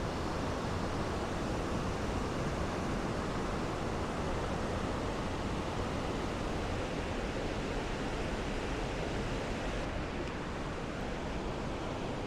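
Steady rushing of a river's whitewater pouring over a weir in a rocky gorge, an even hiss with no breaks; it turns slightly duller near the end.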